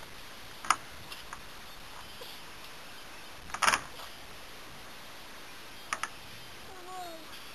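A few sharp clicks and knocks, the loudest a short cluster about three and a half seconds in, and a faint brief falling animal call near the end.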